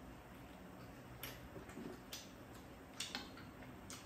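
Faint, evenly spaced sharp clicks, about one a second, over a quiet room.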